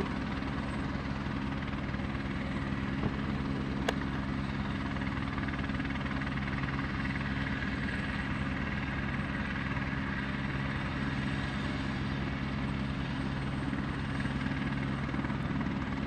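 Helicopter running steadily on the ground, its turbine engine and rotor turning at a constant pitch, with one short click about four seconds in.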